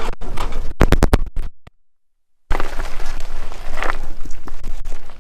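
Wheelchair-mounted snow plow blade scraping and grinding along the ground as it is pushed, a rough, noisy scrape with many small knocks. It cuts to silence for about a second partway through, then resumes.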